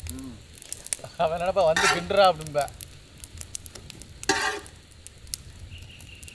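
Chicken noodles being stirred and tossed with a long-handled spatula in a large metal pan over a wood fire: sizzling, with many short clacks and scrapes of the spatula against the pan and a louder scrape about four seconds in. A wavering voice-like sound runs for about a second and a half, starting about a second in.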